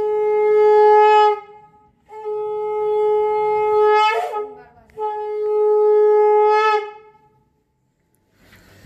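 Conch shell (shankha) blown in three long, steady blasts, the traditional Bengali welcome for an arriving son-in-law. The first blast is already sounding and stops about a second and a half in. The second ends with a sharp upward crack about four seconds in, and the third stops near seven seconds.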